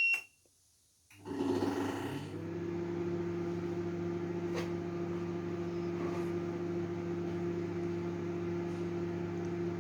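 Microwave oven running a short test cycle on its grill setting. A single keypad beep is followed, about a second in, by the oven starting up with a brief louder surge, then a steady low electrical hum.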